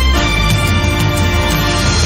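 TV newscast's theme music playing as a short ident jingle, with a heavy bass underneath.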